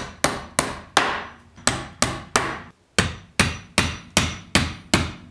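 Hammer repeatedly striking a nail to drive it through a 2x4 pine support beam into the wooden ramp boards below. The strikes come at about three a second, with a short pause about halfway through.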